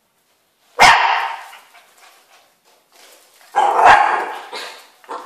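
A dog barking during play: two loud barks, one about a second in and another near four seconds, each trailing off with a little echo.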